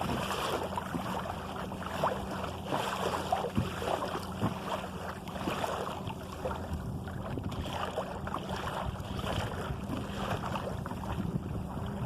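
Water splashing and lapping against a sailing canoe's hull as it moves under sail, with wind blowing on the microphone. A steady rush is broken by frequent small splashes.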